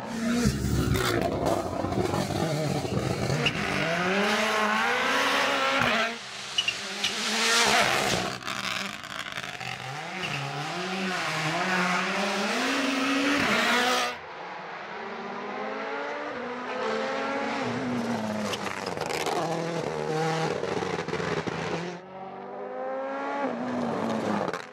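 Rally car engines revving hard, the pitch climbing and dropping again and again with gear changes and lifts off the throttle. The sound changes abruptly three times as one car gives way to another.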